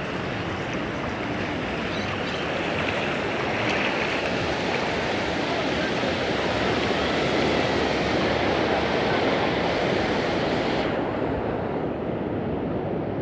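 Ocean surf: waves breaking and washing up the sand in a steady rush of water that swells to its loudest around the middle and then eases off.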